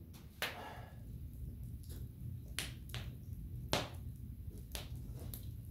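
A stove fire crackling, with irregular sharp clicks and pops over a low steady rumble.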